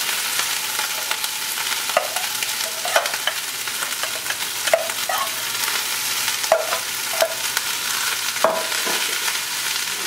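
Cooked rice sizzling as it hits hot sesame oil in a stainless-steel frying pan, a steady frying hiss. A metal spatula scrapes the rice out of an aluminium pot, knocking and clinking against the metal about seven times at irregular intervals.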